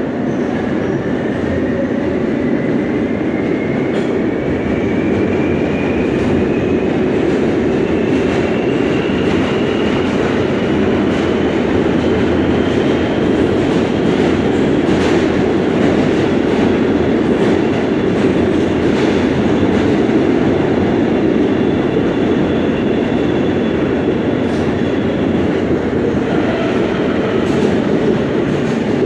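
R143 subway car running through a tunnel, heard from inside the car: a steady wheel-and-rail roar. Its traction-motor whine rises in pitch over the first ten seconds as the train gathers speed, then holds steady and drops out near the end. Occasional clicks come from the wheels over rail joints.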